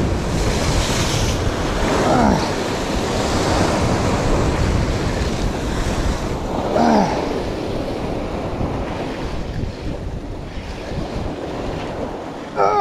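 Sea surf surging and breaking against rocks below, with wind buffeting the microphone. Short falling squeals cut through about two seconds in and again about seven seconds in.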